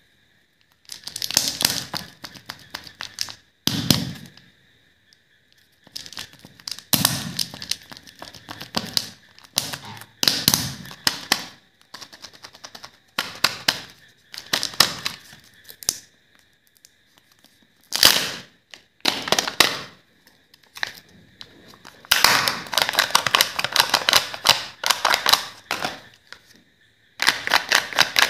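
Crinkling and crackling of a Kinder Joy egg's plastic packaging and foil lid being handled and peeled open. The sound comes in bursts of one to four seconds with short pauses between them.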